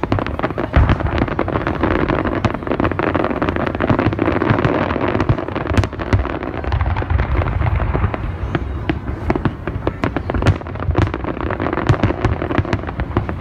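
Large fireworks display: many aerial shells bursting in quick succession, with dense crackling between the sharp reports.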